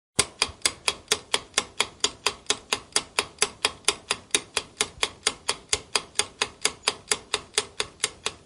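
Clock-ticking sound effect of a quiz countdown timer. It ticks evenly at about four ticks a second, starting suddenly just after the start, as the round's ten seconds run down.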